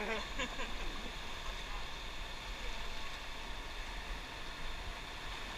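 Steady rushing of a whitewater river, an even wash of moving water, with faint voices briefly near the start.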